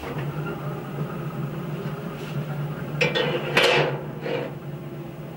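A metal griddle plate clanking against the grates as it is set inside a Pit Boss pellet grill, a few sharp clatters about three to four seconds in, the loudest near the middle of them. Under it runs a steady low hum from the freshly started grill.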